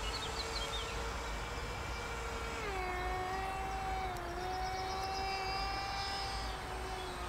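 Radio-controlled model warplane flying overhead, its motor giving a steady whine with several overtones. The whine drops to a lower pitch about two and a half seconds in.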